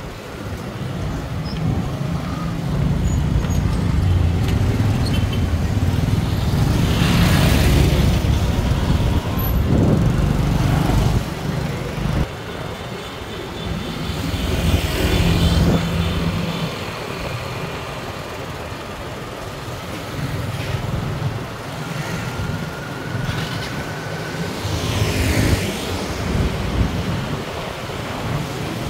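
Street traffic: engines running and vehicles passing close by, three passes louder than the rest.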